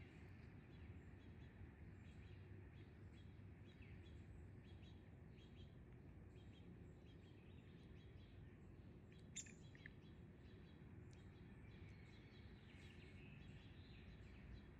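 Faint birdsong: scattered chirps from backyard birds over a quiet, steady outdoor background. A brief sharp sound stands out about nine seconds in.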